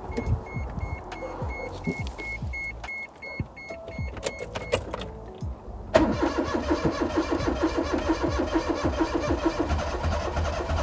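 The starter cranks the Daihatsu Mira's swapped-in turbo engine. The fast, even chugging starts abruptly about six seconds in and does not catch: the engine is spinning on the starter to build oil pressure, not yet firing. Before that, the car's warning chime beeps about three times a second over a few clicks and knocks.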